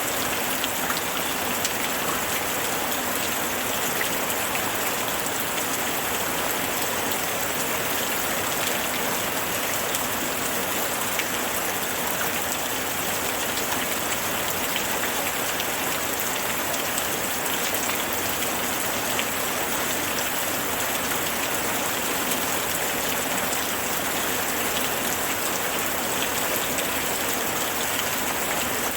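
Steady rain falling on a surface, an even hiss scattered with many small drop ticks.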